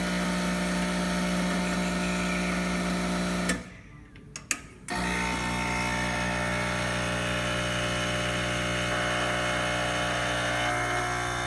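Quick Mill Andreja Premium espresso machine's vibratory pump buzzing steadily while pulling a test shot. It cuts out for about a second and a half around four seconds in, with a couple of clicks, then starts again.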